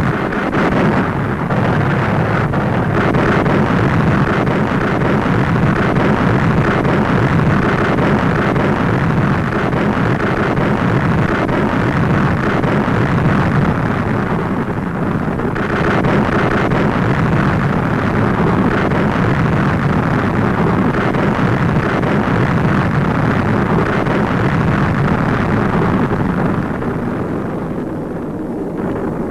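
Continuous loud rumble and roar of a bombing raid's sound effects: explosions with aircraft engines, dense and unbroken, easing off near the end.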